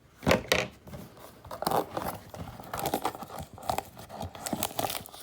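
Trading-card blaster box packaging being torn open by hand: irregular tearing and crinkling of wrapping and cardboard.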